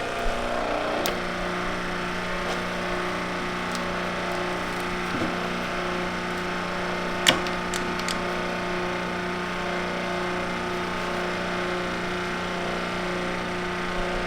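Steady hum of a shop press's pump running while gears are pushed off a transmission countershaft, with one sharp metallic click a little past halfway and a few faint ticks just after.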